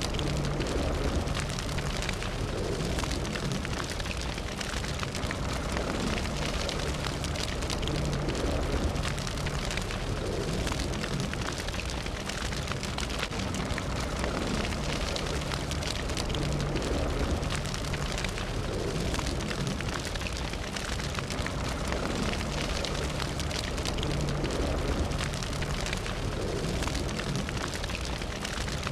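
Fire burning steadily, with dense crackling over a low rumble.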